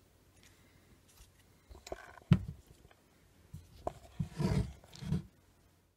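Handling noise from the opened battery pack: a few sharp clicks, the loudest a little over two seconds in, then a cluster of dull low knocks in the last two seconds.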